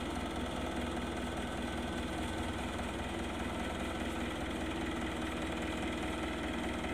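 Powertrac Euro 50 tractor's diesel engine running steadily at idle while its hydraulic tipping trolley is raised to dump soil.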